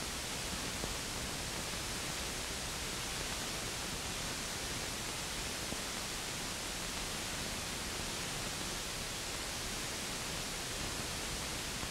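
Steady hiss, the noise floor of an old film soundtrack, with no gunfire or engine sound.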